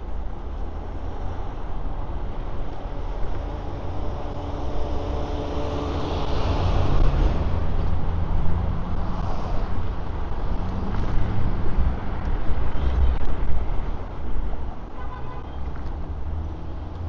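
Wind rumble on a helmet-mounted microphone and road and traffic noise while riding an electric scooter, with vehicles passing. A horn sounds near the end.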